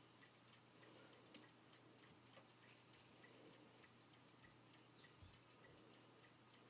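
Near silence: faint room tone with a soft, regular ticking and one slightly louder click about a second and a half in.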